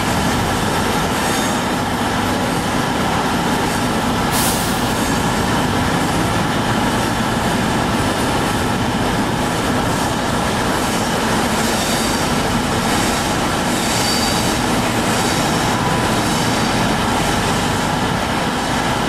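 Rake of passenger coaches rolling past on the rails: a steady rumble of wheels on track, with thin wheel squeal and a brief sharp high-pitched noise about four seconds in.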